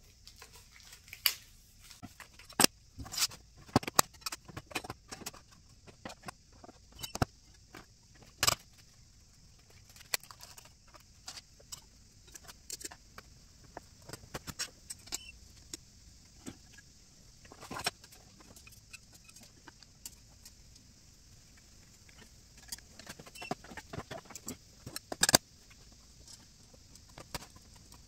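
Irregular clicks, taps and clatter of thin black sheet panels and metal frame strips being handled and fitted together into a box case, with a few sharper knocks scattered through.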